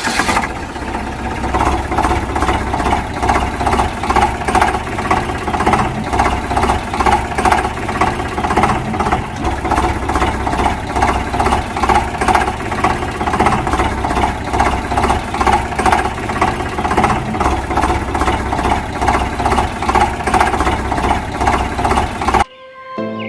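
A vehicle engine running steadily with an even, rapid pulse, cutting off suddenly near the end.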